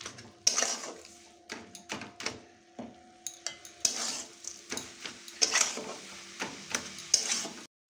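Flat metal spatula scraping and stirring a sticky mixture of grated coconut, sugar and date-palm jaggery around a metal karahi as it is cooked down, in quick irregular strokes of scrapes and clicks. The sound cuts off abruptly near the end.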